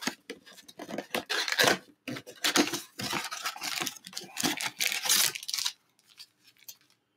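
Cardboard 2021 Absolute Football hobby box being torn open and its wrapped card packs slid out and stacked: an irregular run of tearing, scraping and crinkling that stops about six seconds in.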